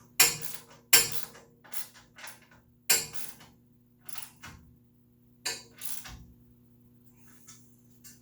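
Metal tools and hardware knocking and clinking: about nine sharp, irregular clanks in the first six seconds, then a few faint ones, over a steady low hum.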